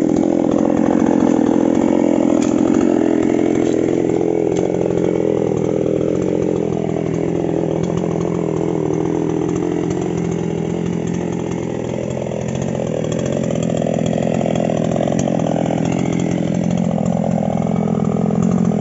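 Falcon two-stroke chainsaw engine running steadily, with a slight dip in level around the middle.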